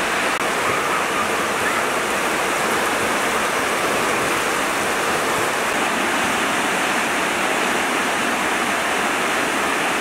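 Heavy rain falling steadily on leafy trees, an even, unbroken hiss.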